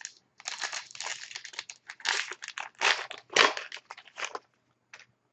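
Wrapper of a 2011-12 Upper Deck SPx hockey card pack being torn open and crinkled by hand: dense crackling for about four seconds, then one brief crinkle near the end.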